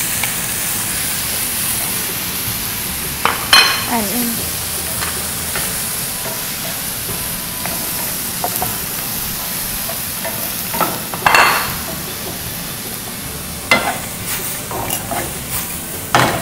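Baby clams and chopped onion sizzling in a hot stainless-steel skillet, stir-fried with a wooden spatula that scrapes and knocks against the pan a few times over the steady hiss.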